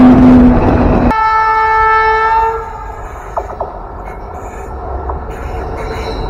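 Indian Railways train horns: a loud, steady horn that cuts off abruptly about a second in, then a second, higher-pitched horn blast lasting about a second and a half. After that comes the quieter, steady rumble of a train running, with a few faint clicks.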